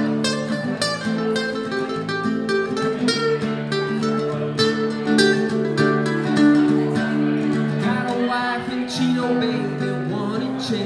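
Acoustic guitar played solo, strummed and picked in a steady rhythm as an instrumental break between sung verses.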